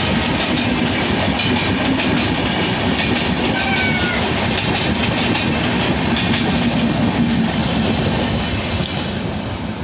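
Express passenger train passing at speed without stopping: a steady loud rumble of the coaches with the clickety-clack of wheels over rail joints, easing off slightly near the end.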